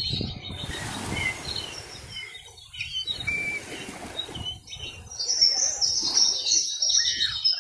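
Birds chirping and calling, many short high chirps and trills overlapping, busiest in the second half.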